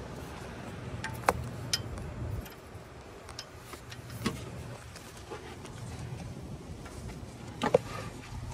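A hand wrench clicking and clinking on a sway bar end link nut and bolt: a handful of sharp metallic clicks, the loudest about a second in and near the end, over a steady low hum that fades out partway through and returns.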